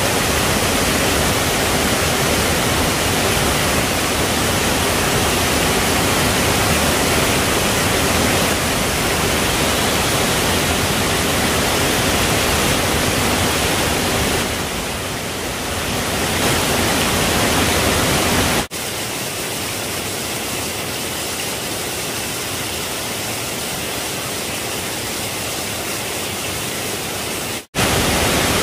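Steady rush of a nearby forest stream or small waterfall. About two-thirds of the way through it drops suddenly to a lower, thinner hiss, with a brief dropout near the end.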